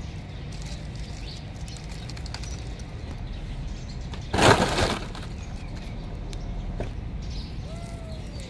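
A short, loud crackle of dry palm fronds, about halfway through, over a steady low rumble.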